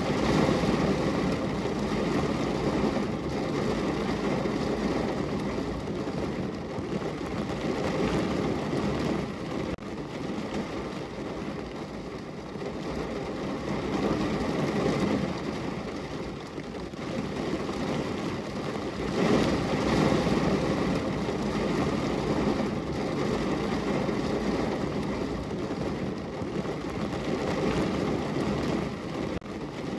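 Steady rain on a window: a dense, low rushing noise that swells and eases several times, with a few faint drop taps.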